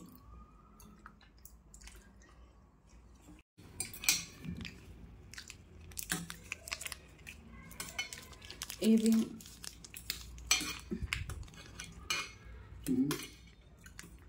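A steel spoon clinking and scraping against stainless-steel plates. It is faint at first, then turns into a busy run of sharp clicks and taps from about three and a half seconds in.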